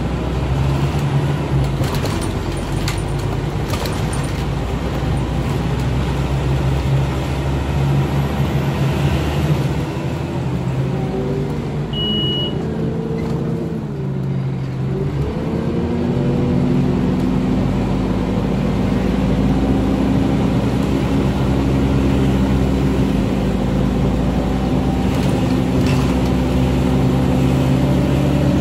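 Scania DC9 8.9-litre five-cylinder diesel of a Scania OmniCity bus, heard from inside the saloon while under way. About halfway through, the engine note falls as the bus slows, then rises again as it pulls away, and settles into a steady, slowly climbing note. A brief high beep comes about twelve seconds in.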